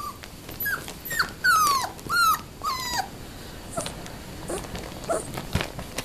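Four-week-old standard poodle puppy whining: about five high, squeaky whimpers in the first three seconds, each falling in pitch. Then fainter, shorter whimpers.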